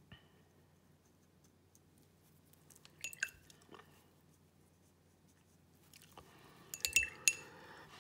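Mostly quiet room tone with a low steady hum, broken by two short clusters of small sharp clicks, about three seconds in and again near seven seconds.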